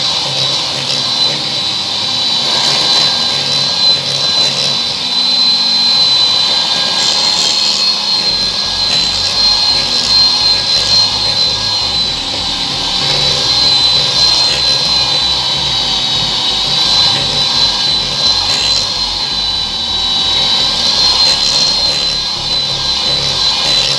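Electric hand mixer running steadily, its beaters creaming margarine in a glass bowl, with a steady high motor whine.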